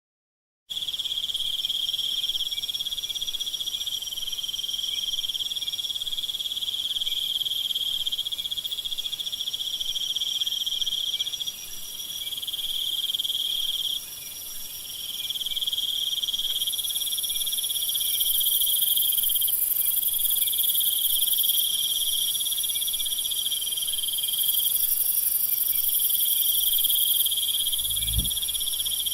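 Nighttime jungle insect chorus: crickets and other insects trilling steadily in several overlapping high-pitched layers, with a still higher buzzing layer that swells in about halfway through. A low croak or thump sounds near the end.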